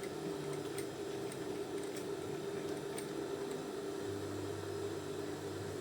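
Electric sewing machine running with a steady hum while stitching, with a few faint clicks; a lower hum joins about four seconds in.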